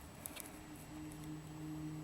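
A few keystrokes on a CM Storm Quickfire Rapid mechanical keyboard with Cherry MX Brown switches near the start, then a pause in the typing with a faint low steady hum.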